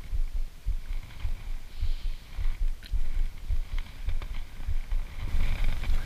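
Wind buffeting an action camera's microphone: an uneven low rumble that gusts and drops every fraction of a second, with a few faint ticks of handling.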